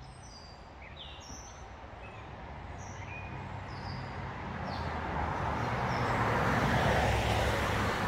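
Birds chirping in short calls over the first few seconds, then a passing vehicle on a road, its noise swelling steadily to a peak near the end.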